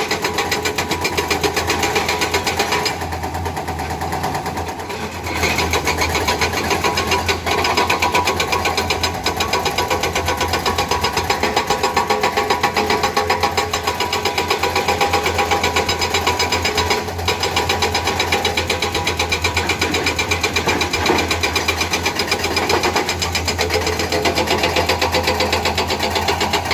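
Hydraulic breaker on a Komatsu excavator hammering in rapid, even blows over the excavator's diesel engine, easing briefly about four seconds in.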